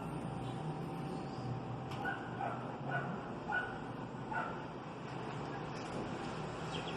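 A dog yipping and whimpering: a run of about five short, high yelps between about two and four and a half seconds in, over steady background noise.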